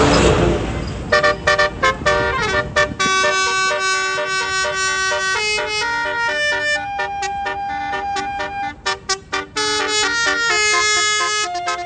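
Tour bus basuri telolet horn playing a tune: quick stuttering toots, then held notes stepping up and down in pitch. It opens with a loud rushing hiss in the first second.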